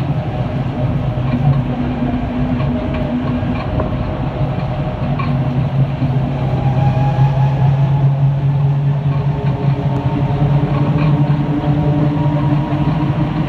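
Alstom NS-16 rubber-tyred metro train heard from inside a car while running: steady rolling noise with several motor tones, some of them drifting in pitch.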